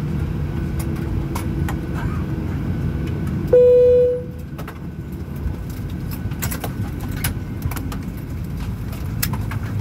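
Airliner cabin rumble, then a single cabin chime about three and a half seconds in: the signal that the seatbelt sign has gone off at the gate. The cabin is a little quieter after the chime, and a scatter of small metallic clicks follows, seatbelt buckles being unfastened.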